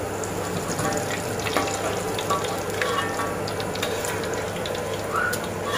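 Batter-coated squid sizzling as it deep-fries in hot oil in a steel wok, with scattered clicks and scrapes of a metal slotted spatula as the pieces are lifted out into a mesh strainer.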